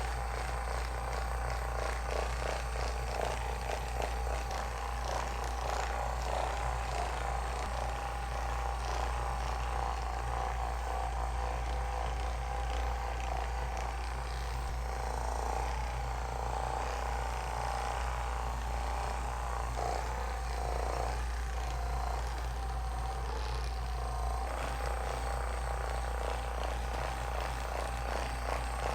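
A small motor running steadily, with a constant low hum and a steady mid-pitched whine.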